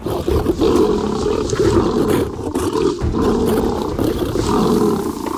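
Two young male lions fighting, snarling and growling loudly without a break.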